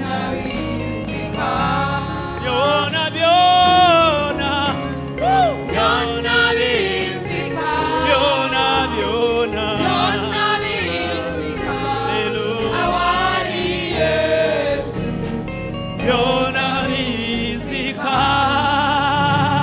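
Gospel worship singing: a choir of voices sings with vibrato over instrumental backing.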